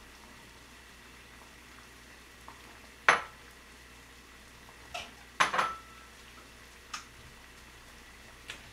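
A few sharp clinks and knocks of dishes and utensils being handled: the loudest about three seconds in, a quick pair a little after five seconds, and lighter ones near seven seconds and near the end, over a faint steady hum.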